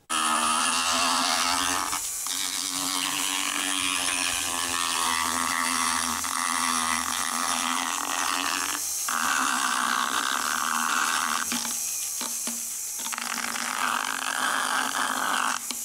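Motorized equine dental float with a cylindrical abrasive burr, buzzing steadily as it grinds down a horse's incisors. It starts suddenly and stops briefly a few times as the burr is lifted and reset.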